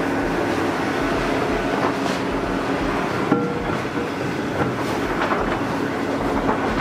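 Loud, steady mechanical rattling noise, with a single sharp knock about three seconds in as the cast gearbox cover of the anchor winch is set down onto its housing.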